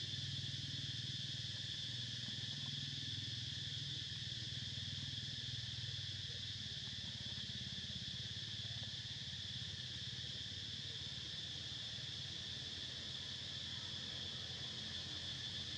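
Steady high-pitched insect chorus droning without a break, over a low steady hum.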